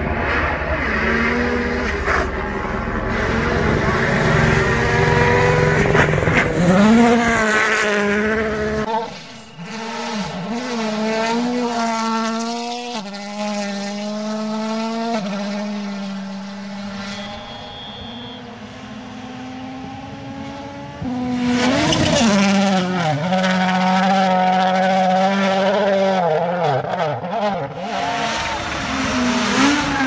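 Rally cars with turbocharged four-cylinder engines driven flat out on gravel stages, one car after another. The engines rev hard, pitch rising and falling through quick gear changes and throttle lifts, loudest in the first few seconds and again from about two-thirds of the way in.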